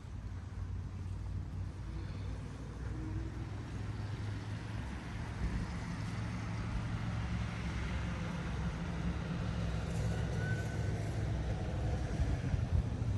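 Street traffic: a motor vehicle's engine and tyres running, with a low rumble that grows gradually louder over the second half.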